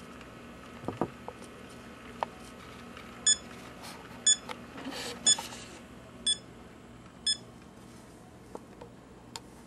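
An electronic beeper sounds five short, high beeps evenly spaced one second apart, with a few small clicks and knocks before and after.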